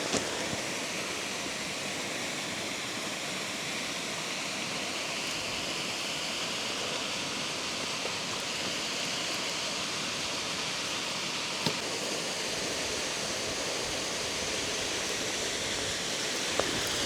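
A steady rush of flowing water, with one small click about twelve seconds in.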